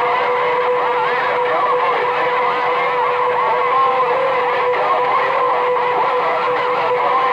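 CB radio speaker on a crowded channel: a steady whistle tone over hiss, with warbling, garbled transmissions underneath.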